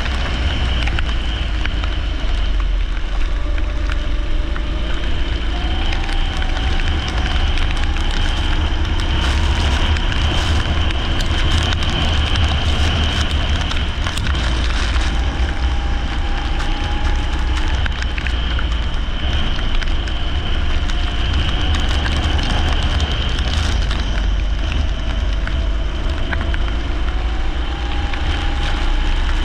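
Leisure kart engine running at race pace on a wet track, its pitch rising again and again as it accelerates, over a heavy low rumble and a steady hiss of spray.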